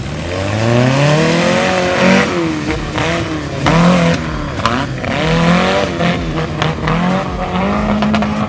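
Off-road side-by-side UTV engine revving hard, its pitch climbing and dropping again several times as the throttle is worked on a rough dirt course.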